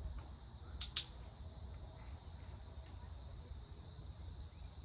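A sharp double click about a second in, the two clicks a fifth of a second apart: a dog-training clicker pressed and released to mark the dog's behaviour. Under it, a steady high hum of insects.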